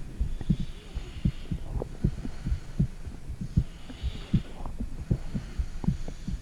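Heartbeat picked up by a phone microphone pressed against the body: a quick run of dull low thumps, with a faint hiss that swells and fades every few seconds.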